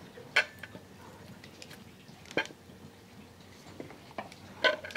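Wooden serving spoon knocking against glazed clay dishes while chile-coated potatoes are scooped from the clay pot onto a plate: a few separate sharp clicks and taps, a couple more close together near the end.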